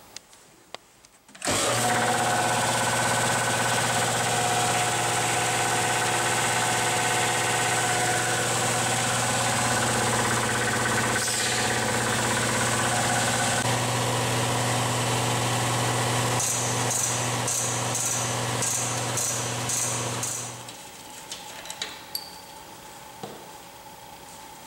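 BendPak car lift's electric hydraulic power unit running, the motor and pump giving a steady hum. It switches on abruptly and cuts off after about nineteen seconds, with a run of regular clicks in its last few seconds.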